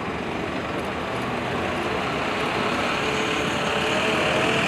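Steady outdoor street noise with a motor-vehicle rumble that grows gradually louder, and faint voices underneath.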